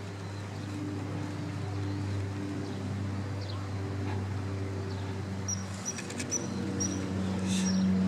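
Steady low engine hum, with a few short, high-pitched bird chirps in the last third.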